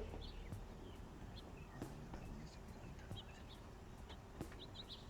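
Faint birds chirping now and then, with a few light clicks.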